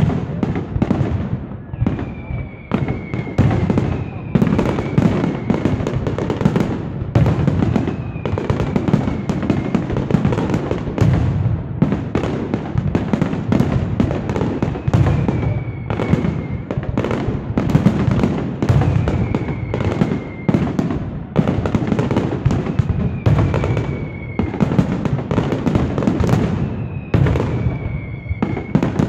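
Aerial fireworks display: a dense, unbroken barrage of shell bursts and crackle, with short high whistles that fall slightly in pitch several times.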